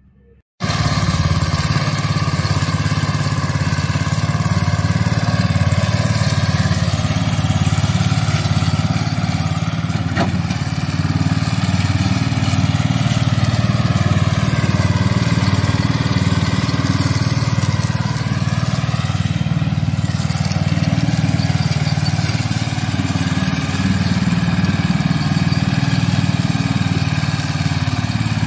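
Rover Rancher mower's rebuilt 12 hp Briggs & Stratton engine running steadily, its speed wavering slightly now and then. It comes in abruptly about half a second in.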